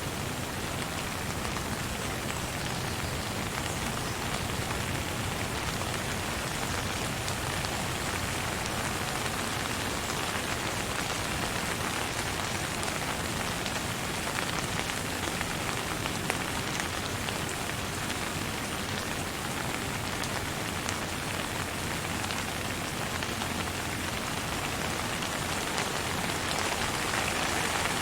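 Steady rain without thunder: an even hiss dotted with the ticks of many small drops.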